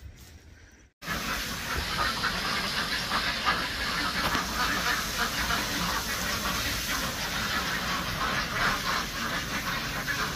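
A flock of ducks quacking, many calls overlapping into a continuous din that starts abruptly about a second in.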